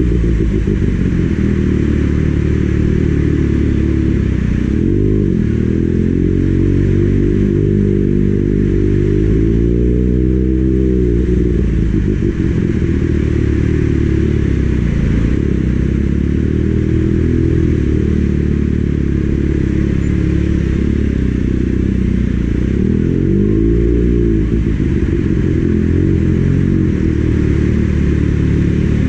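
Kawasaki Ninja ZX-6R's inline-four engine under way, its pitch climbing and falling with the throttle, twice rising sharply, under heavy wind noise on the microphone.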